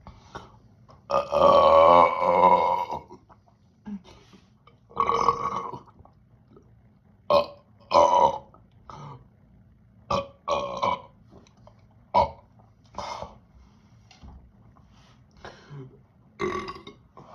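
A person burping loudly after chugging carbonated soda: one long burp of about two seconds, a shorter one, then a string of short burps.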